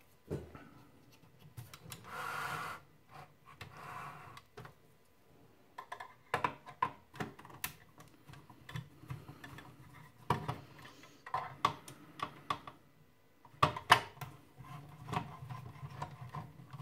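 Screwdriver clicking and scraping as small screws are backed out of a cassette deck's metal chassis, with scattered light taps and clicks of handling and a soft rustle about two seconds in.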